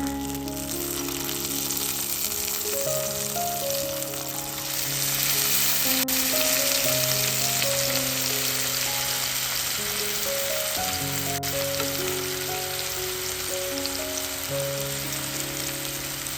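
Food sizzling and frying in a hot pan, the sizzle growing louder about four seconds in, with gentle background music under it.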